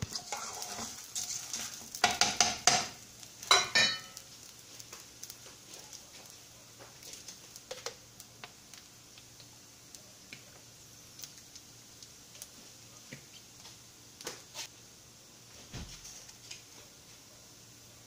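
Metal pots, pans and utensils clattering at a stovetop, loudest in a quick run of knocks in the first four seconds. After that, only scattered light clicks over a faint steady hiss.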